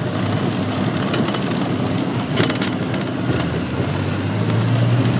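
ATV engine running steadily on the move over a dirt trail, its hum getting a little louder near the end, with a few short rattles and knocks from bumps.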